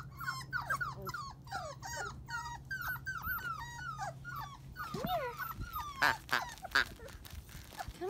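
Very young British Labrador puppies whimpering: a quick run of short, high, falling squeaks, two or three a second, then a lower rising-and-falling whine about five seconds in. A few sharp clicks or knocks follow near the end.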